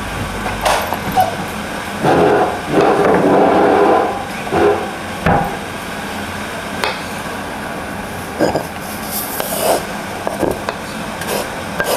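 Irregular knocks and scrapes of kitchen prep: garlic being crushed in a stone mortar (cobek), with the taps of a knife on a cutting board.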